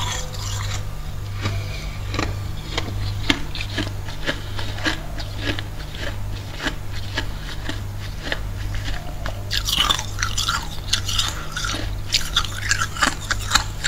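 Freezer frost crunching: a continuous run of crisp crunches, thicker and louder about ten seconds in and again near the end, over a low steady hum.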